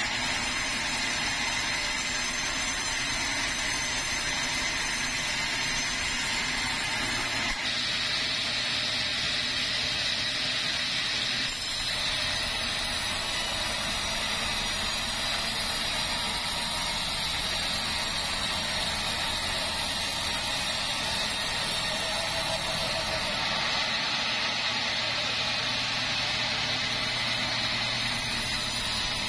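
Large band sawmill running steadily, its blade sawing through keruing logs with a constant high whine over the machine's drone.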